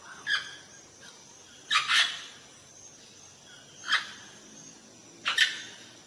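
Amazon parrot giving short, loud squawks, four bursts about every one and a half to two seconds, two of them doubled.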